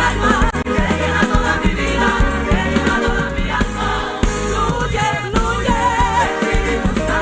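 Live Pentecostal worship song: a lead singer's wavering melody over a band with bass and drums, with the congregation singing along.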